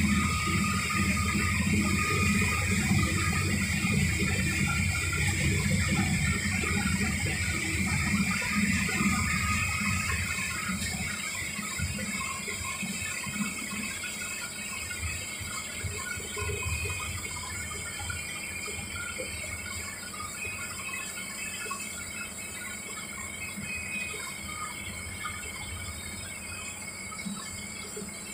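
Bus heard from inside its cabin running on a wet road: a low engine and road rumble with the hiss of tyres on wet tarmac, easing after about ten seconds. Faint high squeaks come and go.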